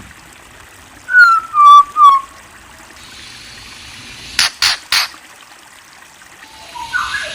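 A songbird whistles three loud falling notes in quick succession. About three seconds later come three sharp clicks, and a burst of chatter starts near the end.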